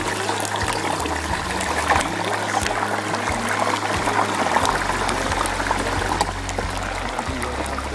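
Whole turkey going into the hot oil of a Butterball indoor electric turkey fryer: the oil bubbles up and sizzles hard around it, a steady hiss full of sharp crackles. Music plays underneath.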